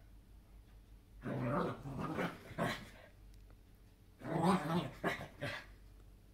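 A small dog growling and barking in short bursts. There are two bouts, one starting about a second in and one about four seconds in.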